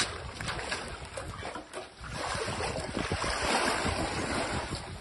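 Floodwater sloshing and splashing as people wade through it on foot, with a louder rush of sloshing about halfway through.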